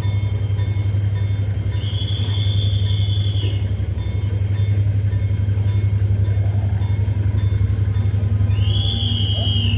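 GM-EMD G22W-AC diesel-electric locomotive running, its diesel engine making a steady low drone. A thin high whine sounds twice, once about two seconds in for nearly two seconds, and again near the end.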